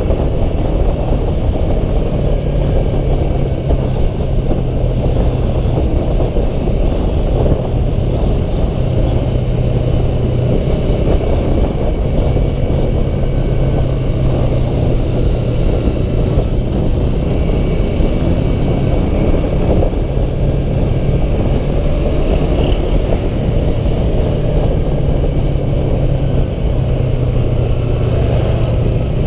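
Yamaha R3's parallel-twin engine running steadily at cruising speed, nearly buried under heavy wind rush on the microphone.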